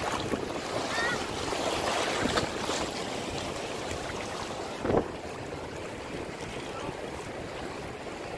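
Waves breaking and washing over a rocky reef flat, a steady rushing noise. A short thump comes about five seconds in, after which the rushing is a little quieter.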